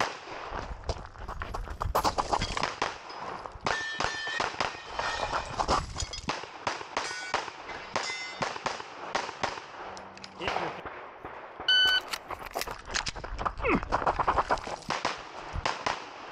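Glock 17 Gen 5 9mm pistol firing in quick strings with short pauses between them. A few short metallic rings sound among the shots, about four, seven to eight and twelve seconds in.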